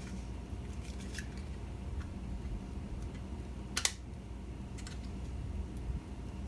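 Small plastic clicks and handling noises from a Raspberry Pi 4 case and fan being fitted together by hand, with one sharper snap a little under four seconds in, over a steady low room hum.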